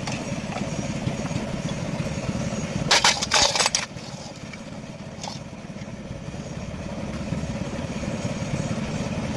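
A vehicle engine idling steadily. About three seconds in, a loud noisy burst lasts just under a second.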